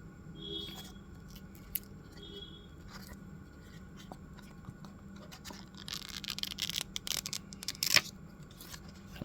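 Packaging and stationery being handled: rustling, crinkling and small clicks, busiest from about six seconds in, with a sharp click near the end, over a steady low hum.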